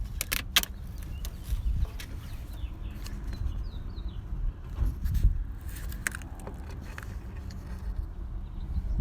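Scattered clicks and rattles of plastic and metal as a fusible link assembly is pressed and pried by hand to release its plastic clips, with a cluster of sharp clicks in the first second.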